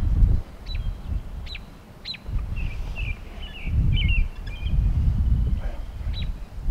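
Small birds calling, with several sharp, falling chips and a short stretch of chattering in the middle. Under them runs a loud, gusty low rumble of wind buffeting the microphone.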